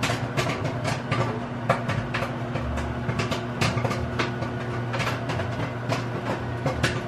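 Microwave popcorn popping inside a running microwave oven: irregular sharp pops, about two or three a second, over the oven's steady hum.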